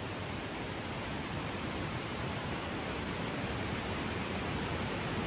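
Steady outdoor rushing noise, even from low to high pitch, with no distinct events.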